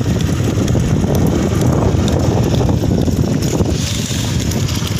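Wind buffeting the microphone of a vehicle moving along at speed, a loud, steady rumble with the vehicle's running noise underneath.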